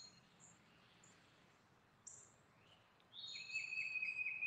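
Faint birdsong: scattered short high chirps, then from about three seconds in a long high wavering note with more chirping above it.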